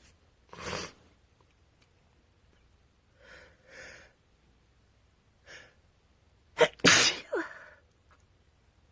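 A woman with a cold sneezing. There is a short noisy burst about a second in and two catching breaths around three to four seconds in. About seven seconds in comes a loud sneeze, the loudest sound, ending in a short falling voiced tail.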